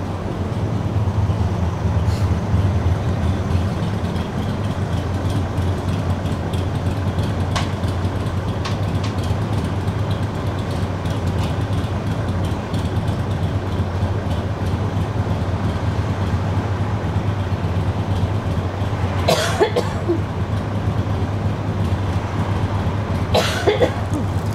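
Warsaw tram in motion: a steady low rumble of the wheels and running gear on the rails. Two brief high screeches come near the end.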